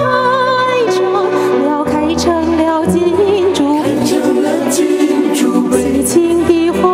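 A woman singing through a handheld stage microphone over backing music, holding wavering notes with vibrato.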